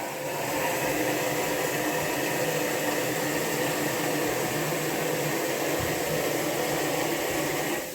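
Steady machine hum with a hissing noise underneath, cutting off abruptly at the very end.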